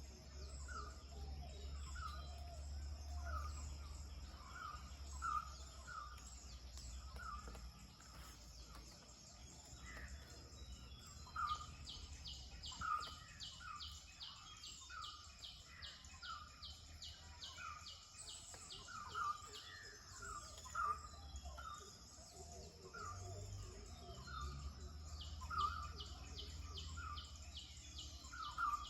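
Birds calling at sunrise: one bird repeats a short note over and over, about once or twice a second, over a steady high whine and a faint low rumble. A fast series of high ticks, about three a second, comes in twice, in the middle and near the end.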